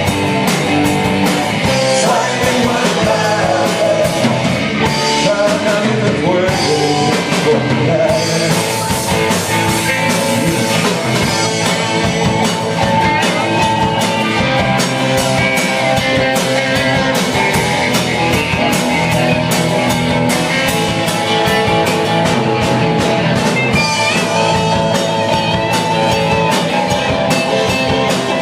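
Rock band music with guitar over a drum kit keeping a steady beat.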